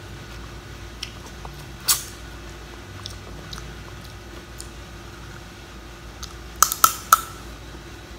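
Mud crab claw shell being bitten and cracked between the teeth: one sharp crack about two seconds in and a quick cluster of cracks near the end, with faint crunching in between.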